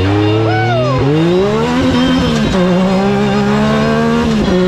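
Yamaha Viper snowmobile's 1049 cc three-cylinder four-stroke engine, swapped into a Yamaha YXZ 1000R side-by-side, heard from inside the open cab under hard acceleration. The engine pitch climbs, then falls sharply about a second in and again a little past halfway, as it shifts up through the gears. A short high whine rises and falls about half a second in.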